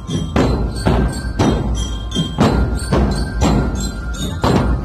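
A marching drum band's massed bass drums beating together in a steady march rhythm, about two strikes a second.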